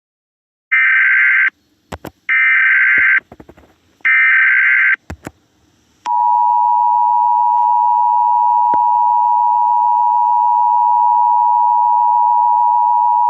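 Emergency Alert System tones: three short, harsh data bursts (the SAME header), with a few clicks between them. About six seconds in, the steady two-tone EAS attention signal begins and holds. This sequence is the standard lead-in to an emergency broadcast message.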